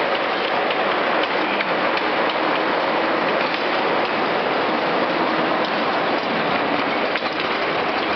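Chain-driven steel bar drawing machine running: its drive chain clattering steadily along the bench, a dense mechanical rattle with faint ticks through it.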